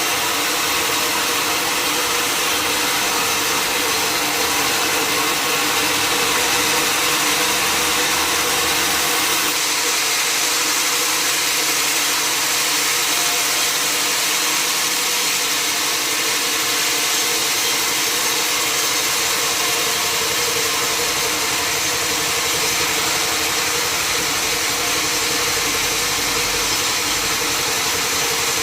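Sawmill machinery running steadily: a continuous engine-like drone with a dense hiss over it, unchanging throughout.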